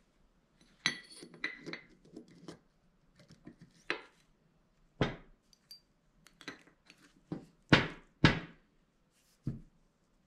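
Steel spider gears and washers from a Meritor axle's hub reduction clinking and clunking as they are picked up and set onto the spider cross. The sound is a run of separate metallic clinks, some with a short ring, and the two loudest come close together near the end.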